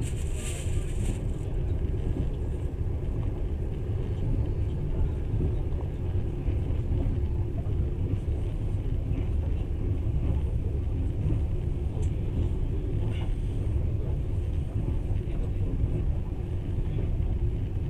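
Passenger train running at speed, heard from inside the carriage as a steady low rumble of wheels and running gear. There is a brief hiss about half a second in.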